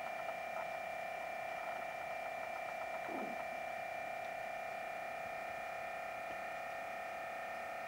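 A steady electronic whine made of several unchanging high tones, with a faint short sound about three seconds in.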